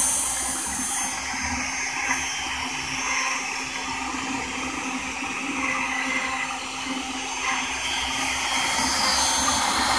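Shapeoko 3 CNC router's compact trim-router spindle running steadily at speed as a small bit carves a relief into a wood board.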